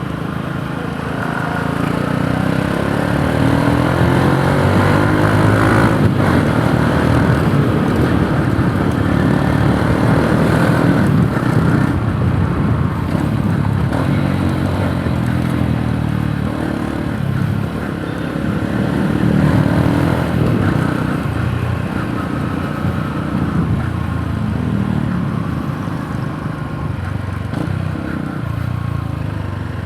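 Yamaha YTX 125 cafe racer's single-cylinder four-stroke engine running on the move, its note rising and falling as the rider accelerates and eases off, swelling louder a few seconds in and again about two-thirds of the way through.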